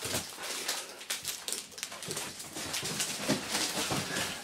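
Large cardboard shipping box and bubble wrap being handled and moved: a busy, irregular rustling, scraping and crinkling of cardboard and plastic.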